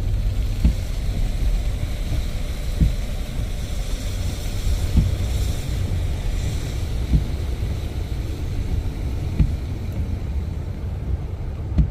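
Steady low rumble inside a pickup truck's cab as it drives slowly on a wet, iced-over road. A short light knock comes about every two seconds, and there is a faint hiss of tyres or rain on the glass.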